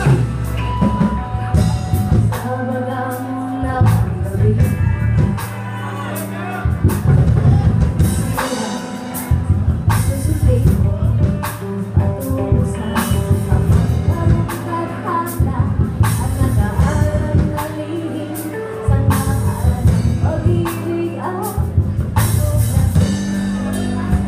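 Live rock band playing: electric guitars, bass guitar and drum kit, with a woman singing lead.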